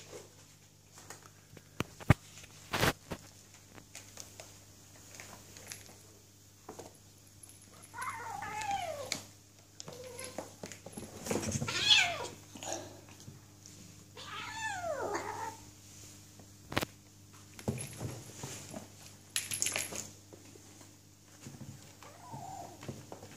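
Two kittens play-fighting on a wooden floor: scuffling, with a few sharp knocks. Through the middle, one of them gives three drawn-out meows that fall in pitch, a few seconds apart.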